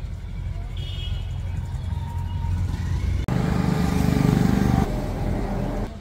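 A motor running steadily, with an abrupt cut about three seconds in, then a louder stretch lasting a second or two.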